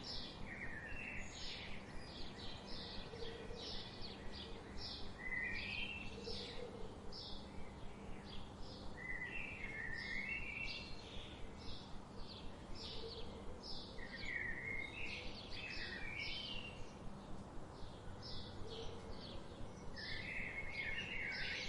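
Birds chirping: a fast run of short, high chirps throughout, with a lower warbling phrase recurring every few seconds, over a steady low background hum.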